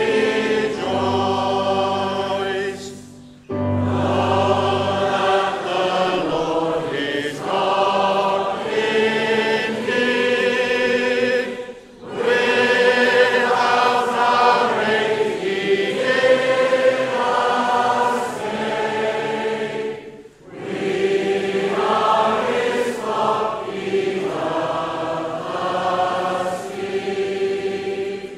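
A church worship group singing a psalm as a hymn in long sustained lines, with a short break between lines about every eight seconds. Low held accompaniment notes sound under the first lines.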